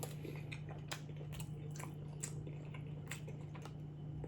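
Close-up mouth sounds of chewing a chili cheese dog: wet smacks and clicks scattered irregularly, over a steady low hum.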